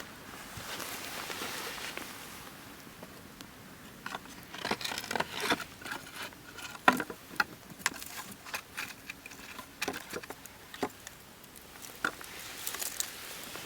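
Wood fire crackling, with irregular sharp pops and snaps that come thickest in the middle, over a soft hiss that swells at the start and again near the end.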